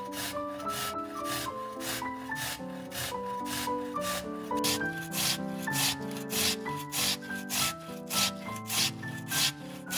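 Rhythmic rasping strokes of hand food preparation, about three a second and louder in the second half, over background music with a keyboard melody.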